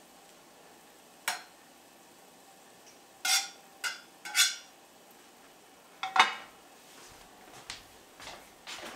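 Metal spoon clinking and scraping against a metal muffin top tin as ground meat is spooned into the cups: a handful of short, separate clinks with pauses between, the loudest about six seconds in.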